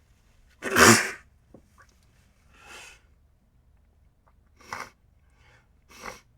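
A single loud, sudden sneeze about a second in, followed by a few softer, shorter breathy sounds.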